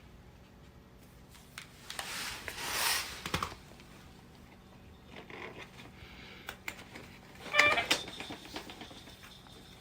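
Rustling and scattered clicks, then about three-quarters of the way through a short pitched animal call, like a cat's brief meow.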